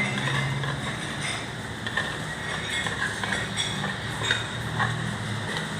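Cutlery and plates clinking during a meal: light, irregular clicks every half second or so, over a steady low hum of background traffic.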